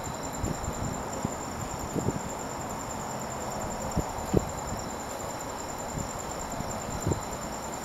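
Crickets trilling in a steady, high, pulsing chorus, with scattered soft low thumps.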